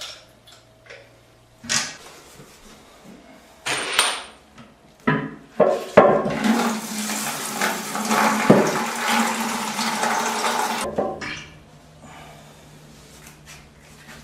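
A few knocks and clicks, then a toilet flushing: water rushes out of the cistern for about five seconds and stops abruptly. A quieter steady low hum follows.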